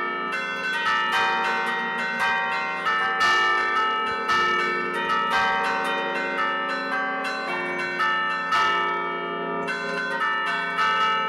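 Set of tuned church bells played by hand from a baton keyboard, the hammers striking one bell after another to pick out a melody at about one to two strokes a second. Each stroke rings on under the next, so the notes overlap.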